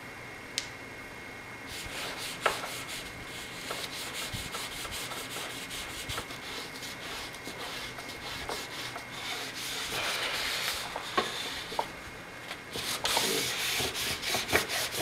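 Paper towel rubbing back and forth over the ridged nonstick plates of a George Foreman grill, wiping off cooking grease in quick scratchy strokes, with a few sharp knocks.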